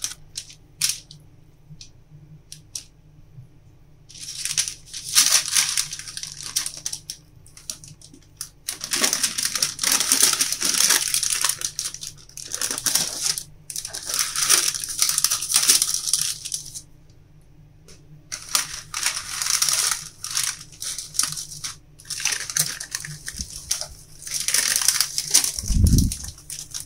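Baking paper crinkling and rustling in several bursts of a few seconds each as it is worked around a log of minced chicken, with a dull thump near the end.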